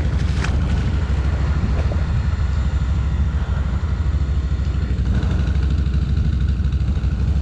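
Can-Am (BRP) Outlander 1000 ATV's V-twin engine running steadily at idle, a low even rumble, with a brief click about half a second in.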